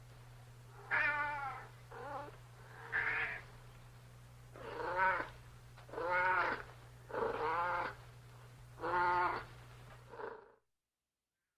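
Domestic cat meowing repeatedly, about eight drawn-out meows over a steady low hum, cutting off suddenly near the end.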